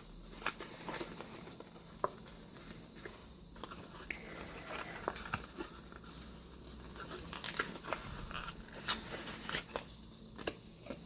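Cardstock being folded by hand along its score lines: soft paper rustling with scattered, irregular small clicks and taps.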